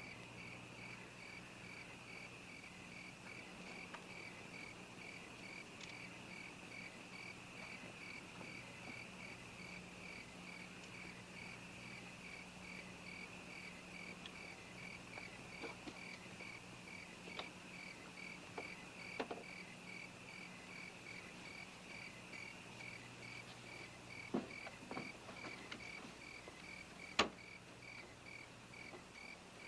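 Crickets chirping faintly in an even, pulsing rhythm. A few faint clicks or knocks are scattered through the later part, with one sharper knock near the end.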